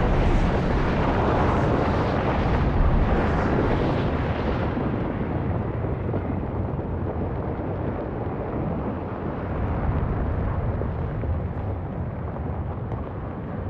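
Underwater volcanic eruption rumbling loudly. It comes in with a sudden blast. A rushing hiss rides over the deep rumble and dies away after about five seconds, while the rumble carries on steadily.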